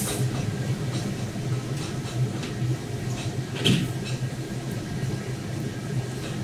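Steady low machine hum with faint background clatter, and one short, sharper clatter about three and a half seconds in.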